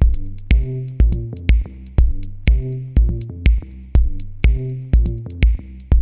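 Background music: an electronic track with a steady drum-machine beat, about two kicks a second, under bass and synth notes.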